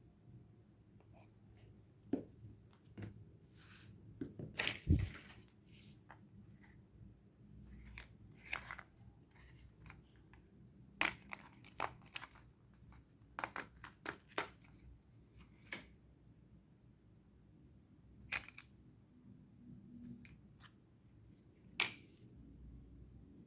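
Scattered small clicks and short scrapes of a wristwatch and small tools being handled during a battery change, some in quick runs, the loudest about five seconds in.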